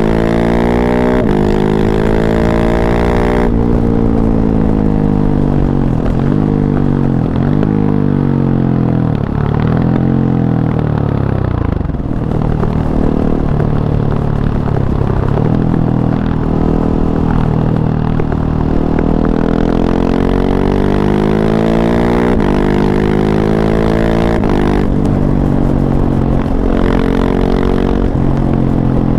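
KTM 690 SMC-R's single-cylinder engine through an Arrow Race-Tech slip-on exhaust with the dB killer fitted, revving up and dropping back again and again. The pitch climbs, falls away sharply and climbs again, as under hard acceleration and engine braking.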